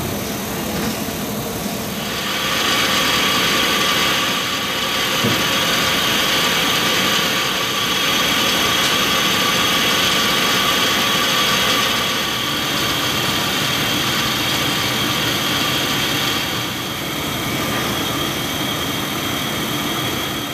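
Hwacheon twin-spindle, twin-turret CNC lathe running in cycle: a steady mechanical hum with a high whine from the spindles and axis drives, which comes in louder about two seconds in. A single short knock about five seconds in.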